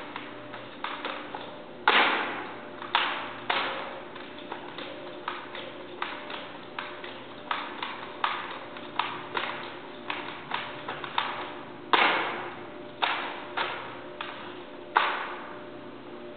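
Rifle drill: a running series of sharp slaps, taps and thumps as hands strike the drill rifle during spins and tosses and its butt knocks the hard floor, each echoing briefly in the large hall. A few louder thumps stand out about two, twelve and fifteen seconds in.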